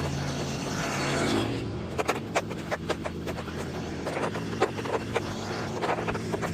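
Electric snow shovel's motor running steadily while it clears snow, with a rapid, uneven string of sharp scrapes and clicks starting about two seconds in.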